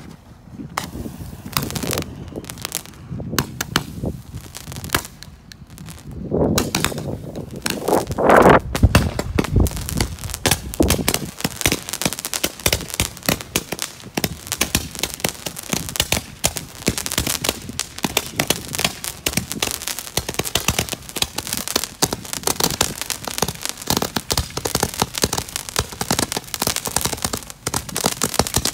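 Rantama ground firework going off: scattered sputtering pops from the burning fuse for several seconds, a louder swelling burst about eight seconds in, then a long run of dense crackling pops as it fires its coloured stars.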